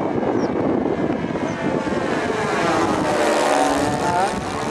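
Twin propellers of a radio-controlled Canadair CL-415 model airplane flying past. The whine grows louder, then drops in pitch as the model goes by.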